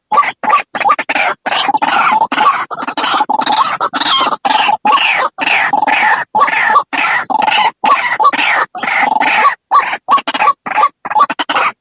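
White-breasted waterhen (ruak-ruak) calling continuously: a fast run of loud, harsh, croaking notes, several a second, played as a lure call to draw waterhens in.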